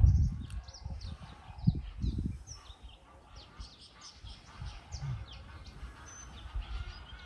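Small birds chirping repeatedly in quick, high, short calls, with a few low rumbles or thumps at the start, about two seconds in, and again near five seconds.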